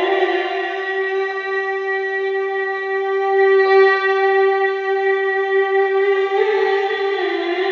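A male Quran reciter's voice holding one long, high note in melodic recitation (tilawah), then turning into an ornamented melodic phrase near the end.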